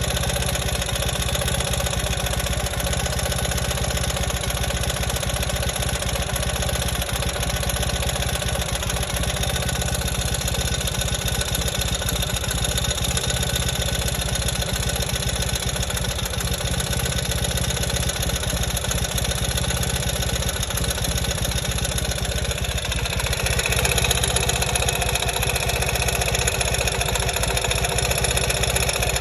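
2020 Ural motorcycle's air-cooled flat-twin engine running steadily, heard through a stethoscope. About four-fifths of the way through, the sound turns brighter and a little louder.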